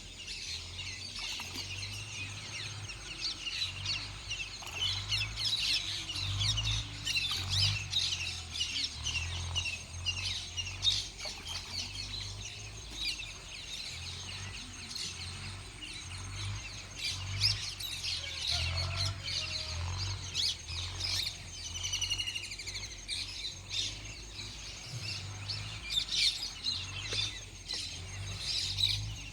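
Many small birds chirping and twittering in quick, overlapping calls, over a low, uneven rumble.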